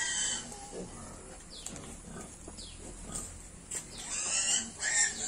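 Piglets squealing, high and shrill, at the very start and again from about four seconds in, with a quieter stretch of short squeaks between.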